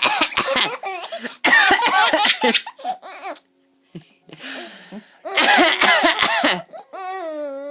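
A person coughing in short fits, each cough drawing a burst of belly laughter from a baby. Near the end the baby lets out one long, high-pitched squeal.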